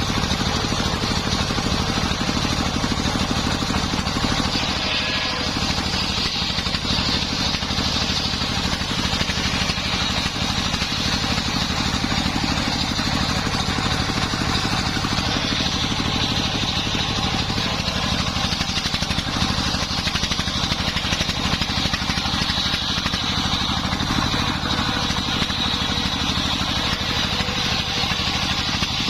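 Engine of a homemade circular sawmill running steadily, with a high whine from the spinning saw blade that comes and goes.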